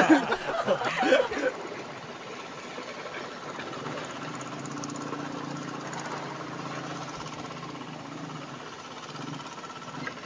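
A motorcycle engine running steadily, a low hum heard for several seconds through the middle. A man's voice is heard briefly at the start.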